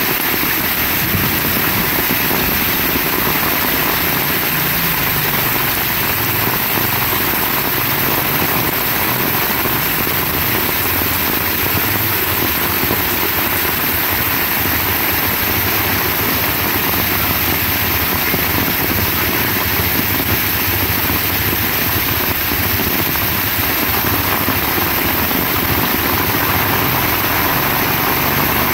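Heavy rain falling steadily: a dense, even hiss with a low rumble underneath that never lets up.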